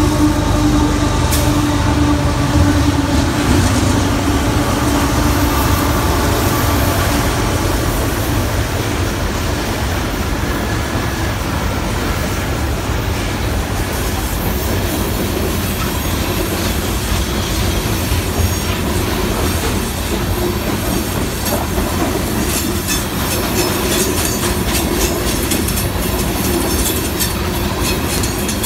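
Heavy freight train of loaded coal hopper cars rolling past at a crossing, the steel wheels clicking over the rail joints with some wheel squeal. A steady humming tone from the passing diesel locomotives fades away in the first few seconds.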